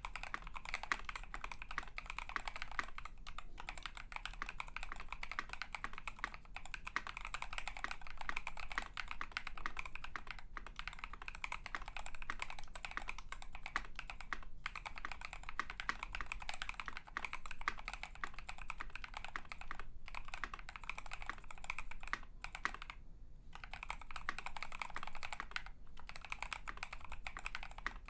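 Fast, continuous typing on a KBD67 MKII polycarbonate mechanical keyboard with lubed NovelKeys Cream linear switches, an FR4 plate, plate and case foam, and KAT blank keycaps: a dense run of keystrokes with a few brief pauses.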